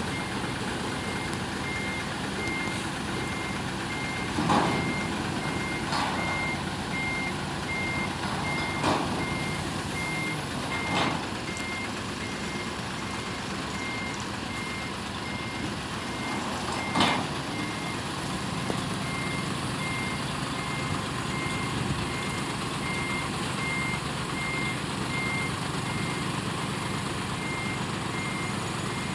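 A heavy-vehicle warning beeper sounds at a steady, even rate over diesel engines running. A few sharp metal clanks come through, the loudest about 17 seconds in.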